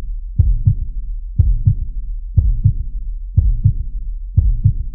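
Heartbeat sound effect: a low double thump, lub-dub, repeating about once a second over a steady low rumble.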